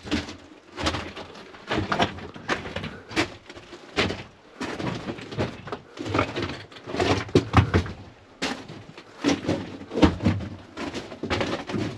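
Footsteps crunching and scraping over loose rock and debris on a mine tunnel floor, an irregular string of strokes at about two a second.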